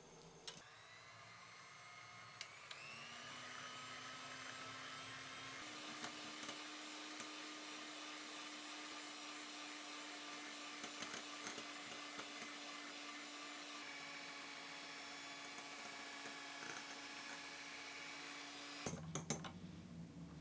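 Electric hand mixer running at high speed, its beaters whipping warmed whole eggs and sugar into a thick foam in a glass bowl. The motor's whine steps up in pitch twice in the first few seconds, then the mixer stops near the end, followed by a few light clinks.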